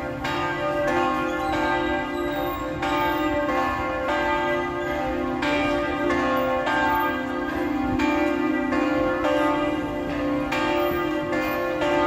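Panama City Cathedral's tower bells ringing: a swinging bell struck again and again, each stroke ringing on into the next over a steady hum.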